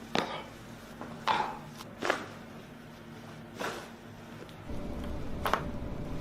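Five sharp cracks of joints popping during a chiropractic adjustment, spread over several seconds. A low hum comes up in the background near the end.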